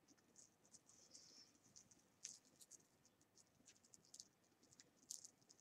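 Faint, irregular small clicks and scratches of metal costume jewelry and chains being handled and picked through.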